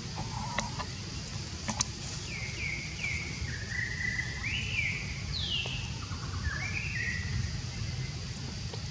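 A bird calling: a quick run of short, high falling whistles, then a few longer rising-and-falling whistled notes, over a steady low rumble. Two sharp clicks come near the start.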